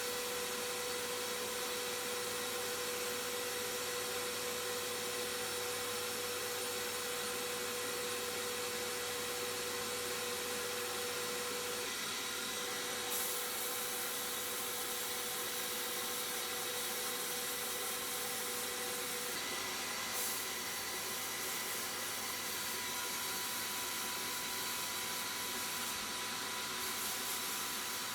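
A steady hissing whir of a running workshop machine, with a faint steady whine over it.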